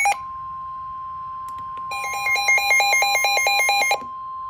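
NOAA Weather Radio 1050 Hz warning alarm tone: one steady, unbroken high tone that signals a weather warning is about to be read. From about two to four seconds in, a louder electronic alarm beeps over it at about five pulses a second.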